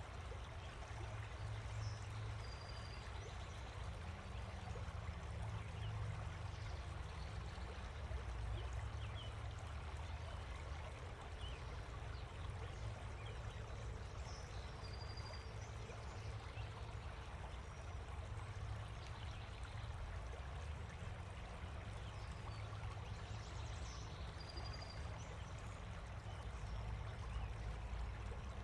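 Steady rushing ambient noise with a heavy low rumble, broken by a few brief faint high chirps.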